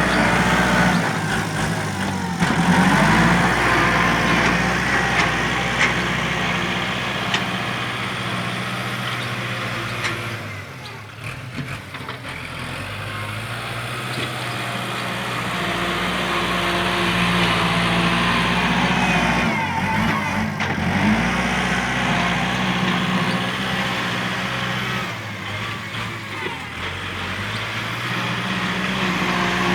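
Tractor engine running under changing load, its revs rising and falling. The engine note drops about ten seconds in and builds back up, with shorter dips later.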